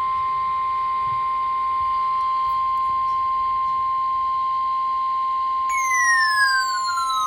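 Emergency Alert System weather alert tone: a single steady, loud tone near 1 kHz, the NOAA Weather Radio 1050 Hz warning alarm. About six seconds in, a siren-like tone with overtones starts and slides downward in pitch over it.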